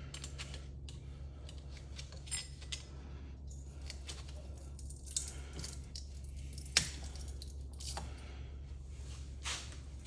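Wire cutters snipping and metal clinking as copper windings are cut and pulled from a ceiling fan motor's steel housing: scattered clicks and snaps, one sharp snap about seven seconds in, over a steady low hum.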